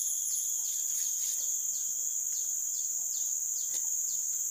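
A steady high-pitched drone of insects, with a series of short falling chirps about twice a second over it.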